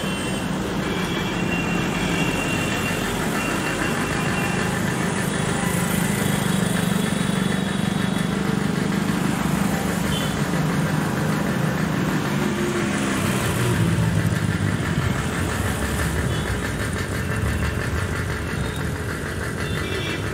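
Cars and motorcycles driving slowly round a hairpin bend one after another, their engines running at low speed with tyre noise. The engine hum swells in the middle as vehicles pass close by.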